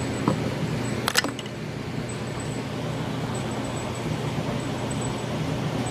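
Steady low background hum and hiss, with a few sharp clicks about a second in as a plastic squeeze bottle of wood glue is handled.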